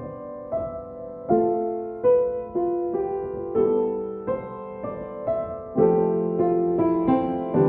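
Slow, improvised solo piano: notes and chords struck about every half second to a second, each left to ring and fade before the next.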